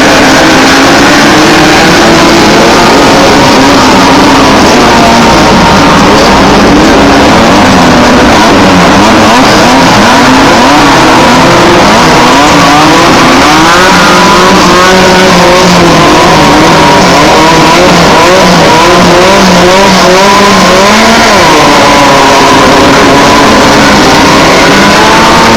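Several Class 1600 off-road race buggies, powered by air-cooled 1600 cc Volkswagen engines, revving and accelerating off the start. It is loud throughout, with many engine notes rising and falling over one another.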